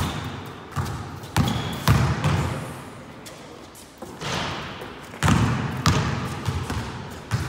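Basketballs bouncing on a hard court and slapping into hands as they are passed and caught: a string of sharp thumps at uneven intervals, grouped about a second in and again from about five seconds in.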